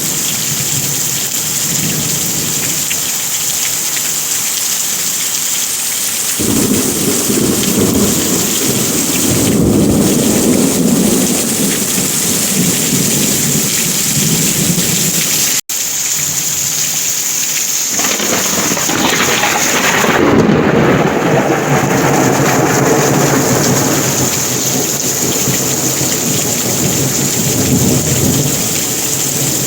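Heavy rain falling steadily, with thunder rumbling in from about six seconds in and again, louder, from about eighteen seconds in. The sound cuts out for an instant about halfway through.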